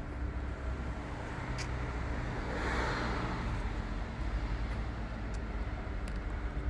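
Road traffic: a vehicle passes by, swelling and fading about three seconds in, over a steady low rumble, with a few light clicks.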